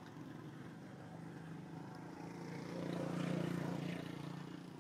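A motor engine running, growing louder about two and a half seconds in and easing off again near the end, as if passing by.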